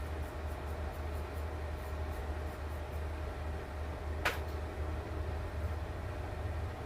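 Steady low machine hum with a faint constant tone above it, and one sharp click about four seconds in.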